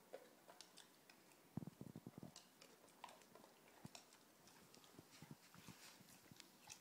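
Faint clicking of a dog's claws on a wooden floor as it walks, with a short run of low thumps about one and a half to two and a half seconds in.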